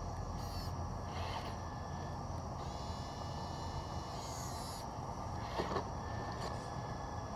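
Traxxas TRX-4 RC crawler's small electric motor and gears whining as it crawls over rocks, the whine gliding up and down in pitch partway through. A couple of sharp knocks come about two-thirds of the way in.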